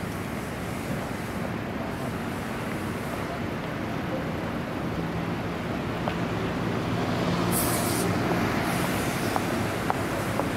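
City street traffic: a steady wash of road-vehicle noise, with an engine drone growing louder in the second half. A short hiss comes about seven and a half seconds in.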